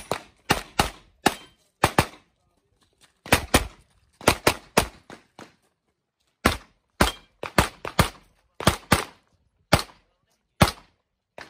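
Rapid pistol fire: about twenty sharp shots, fired in quick pairs and short strings with brief pauses between groups, the pace of a practical shooting stage being run against targets.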